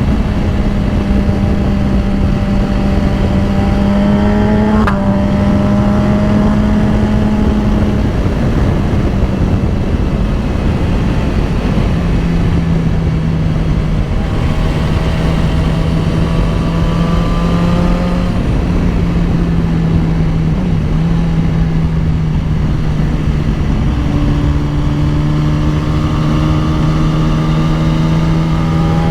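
BMW S1000RR superbike's inline-four engine running steadily under way at a fairly constant pitch, easing slightly up and down a few times, under a steady rush of wind noise.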